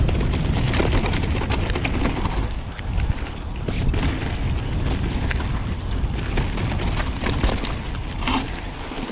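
Wind rumbling on the microphone as a mountain bike is ridden fast down a dirt trail, with tyre noise and frequent clicks and knocks of the bike rattling over rough ground.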